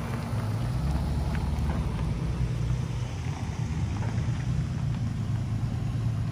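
Car engine running at low revs with a steady low rumble, as the car moves off slowly.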